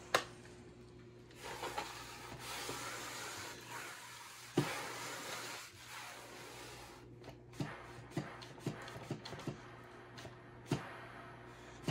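Shark steam mop and its worn cloth pad being handled on the floor: a rasping rub lasting several seconds, then a run of light taps and clicks as the mop head is set back onto the pad.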